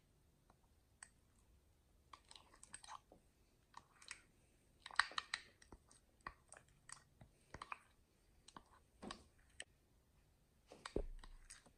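Metal spoon stirring a thick clear gel in a small glass bowl: faint, irregular clicks of the spoon against the glass mixed with soft wet smacks of the gel, strongest about five seconds in and again near the end.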